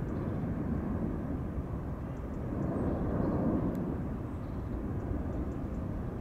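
Low, steady jet rumble of an Emirates Airbus A380-861's four Engine Alliance GP7200 turbofans at climb power as it climbs away after take-off, swelling slightly about three seconds in.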